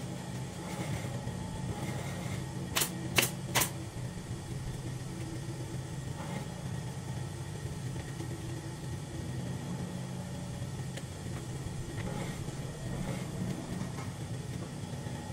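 Steady low hum of a workshop air compressor running, with three sharp clicks about half a second apart roughly three seconds in.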